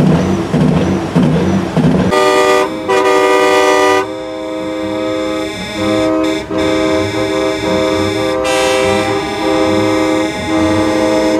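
Semi-truck air horns sounding together in a long, loud multi-note chord, starting about two seconds in and held with a few short breaks. Before the horns, a low rhythmic thumping.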